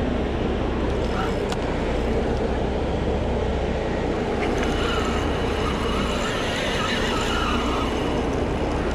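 Steady boat engine and water noise, with a wavering high squeal and a thin steady whine coming in about four and a half seconds in.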